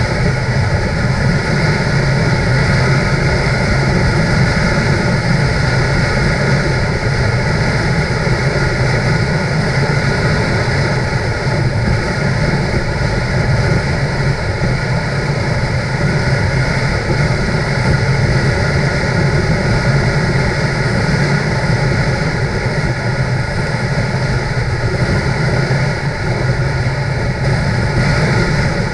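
Motorcycle engine running steadily at cruising speed, with wind noise over it.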